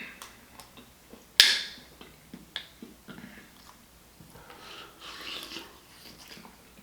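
Close-up eating sounds: wet chewing and mouth smacking, with a sharp click about a second and a half in and another just after two and a half seconds.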